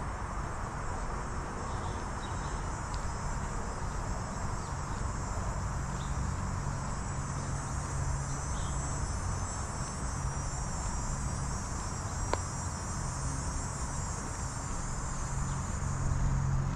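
Insects trilling steadily in a high, even chorus over a low steady rumble, with a single sharp click about twelve seconds in.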